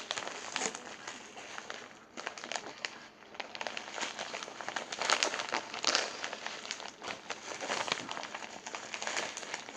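Plastic packaging crinkling and rustling as squishy toys are handled and pushed back into their bags, loudest about five to six seconds in.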